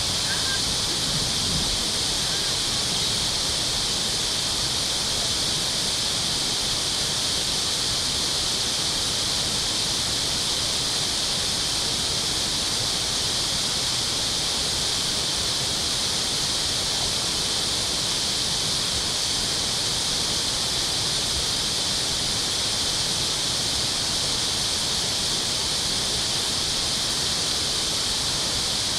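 Steady rushing hiss of water pouring through a dam, unchanging throughout, with its strength in the upper register.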